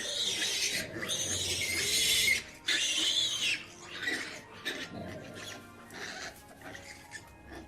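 Pig squealing, loud, shrill calls in the first few seconds, then fainter ones, over background music.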